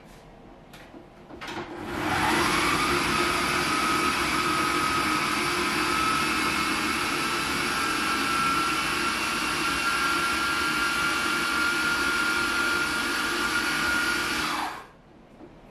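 Electric motor of a kitchen appliance spinning up about two seconds in, running loudly with a steady whine whose pitch creeps slowly upward, then winding down and stopping near the end.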